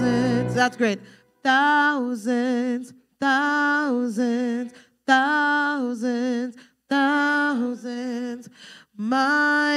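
Unaccompanied singing: a fuller sustained sound ends about a second in, then a lone voice sings a short phrase about five times, each around a second and a half long with brief pauses between.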